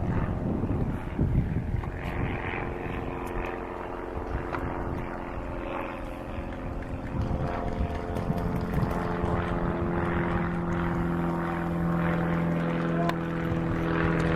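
Engine drone of a propeller aircraft, steady in pitch, coming in about halfway through and growing louder.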